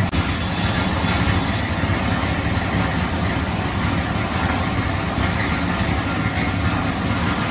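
Plastic grinding machine running steadily, a loud, constant mechanical drone with a dense hiss over a deep rumble.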